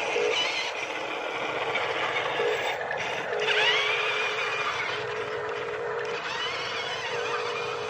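Radio-controlled toy trucks driving: a steady whir of small electric motors and gears, with a rapid pulsing buzz that comes and goes in several short spells.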